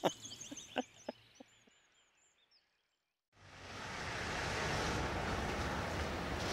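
Faint bird chirps and a few short knocks die away, then comes about a second and a half of silence. A steady rushing noise fades in about three and a half seconds in and holds.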